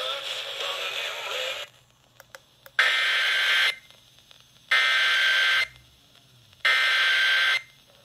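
Music with singing plays from a small radio speaker and cuts off about two seconds in. Then the Emergency Alert System header follows: three harsh one-second bursts of digital data tones, evenly spaced, with short silences between them.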